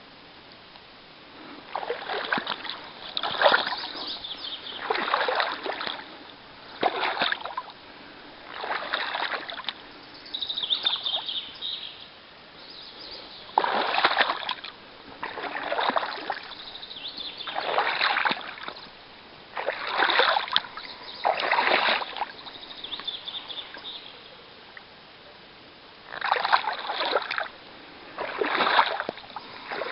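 A small boat rowed across still water, each stroke splashing and sloshing about every two seconds, with a pause of a few seconds near the end.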